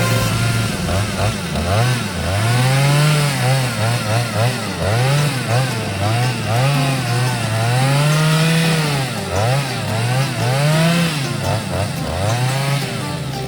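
Petrol chainsaw engine revving up and sagging back over and over, about a dozen swells in pitch, the pattern of a saw being worked through wood. It settles back to a steady idle near the end.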